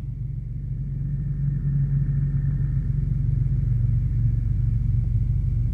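A low, steady rumble that grows louder over the first couple of seconds, with little higher sound above it.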